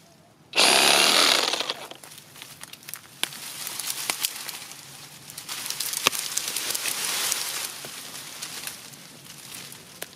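A cordless reciprocating saw cuts into an oak stem at ground level in one short burst of about a second, then stops. Irregular rustling with scattered sharp cracks follows.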